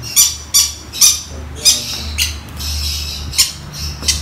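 Young pineapple conure chick giving a rapid series of short, harsh begging squawks, about two a second, at hand-feeding time: a hungry, greedy baby parrot calling for food.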